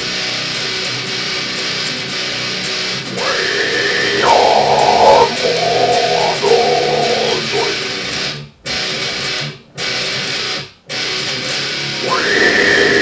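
Electric guitar riff with growled death-metal vocals over it. The sound stops dead three times, about a second apart, in the second half.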